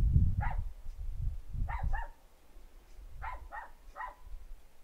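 A dog barking in the background, about six short barks in twos and threes. Low rumble and knocks from handling the work are the loudest sound for the first two seconds, then die away.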